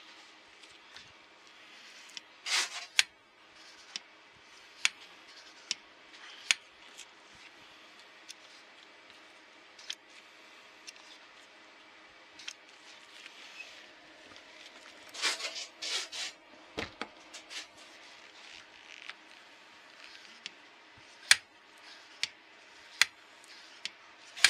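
A bank of Kawasaki Z1000ST Mikuni carburetors worked by hand: the throttle linkage opening and snapping shut on its return spring, in scattered sharp metallic clicks with a few louder clattering bursts.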